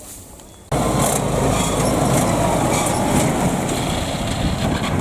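Kubota DC70 combine harvester's diesel engine running loud and steady, cutting in abruptly a little under a second in.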